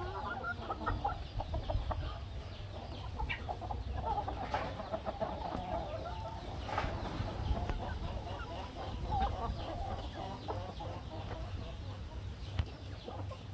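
Flock of roosters and hens clucking, many short, scattered clucks from several birds, over a steady low rumble.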